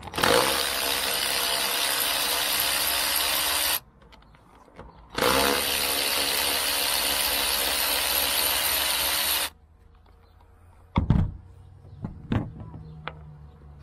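Cordless Ryobi electric ratchet with a 10mm socket, running to undo bolts from a car's roof channel: two steady runs of about four seconds each with a short pause between them. After that, a couple of sharp knocks.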